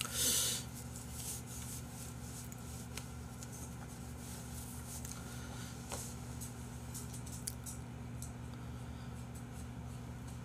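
Quiet room tone with a steady low electrical hum and a few faint small clicks, after a short burst of rustling noise just after the start.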